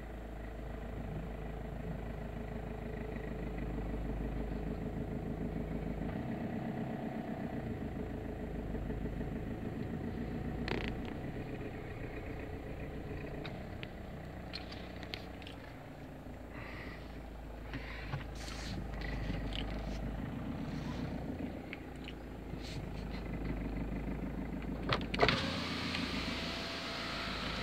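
Car engine running at low speed in stop-start traffic, heard from inside the cabin as a steady low hum with a few light clicks. Near the end comes a sharp knock, and then a louder hiss sets in.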